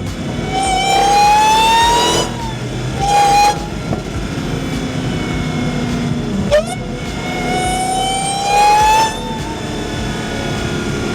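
A car giving a high-pitched whine that climbs steadily in pitch for about a second and a half, then cuts off abruptly. This happens twice, with short blips of the same whine and a lower steady drone in between.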